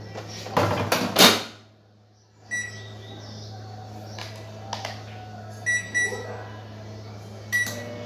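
LG MH7049C microwave oven, just repaired: its door shuts with a loud clunk about a second in. Then its keypad beeps as the cook time is entered, once, then twice in quick succession, then once more near the end, as the heating test is set going. A steady low hum runs underneath.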